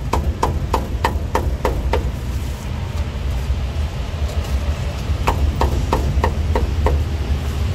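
Heavy cleaver chopping meat on a thick round wooden chopping block: a quick run of about eight chops at three or four a second, a pause of about three seconds, then another run of about seven. A steady low rumble lies underneath.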